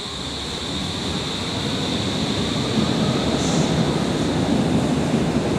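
Berlin U-Bahn IK-series train pulling along the platform and picking up speed: its rumble and running noise grow steadily louder, with a steady high whine above and a couple of brief high hisses later on.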